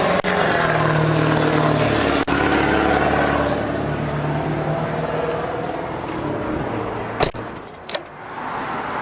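Vehicle engine noise, a steady rumble that dies away about seven seconds in. Two sharp clicks follow near the end as a release lever beside the driver's seat is pulled.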